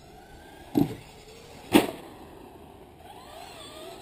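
Traxxas radio-controlled truck on asphalt: two sharp knocks about a second apart stand out loudest, and near the end a wavering whine rises and falls.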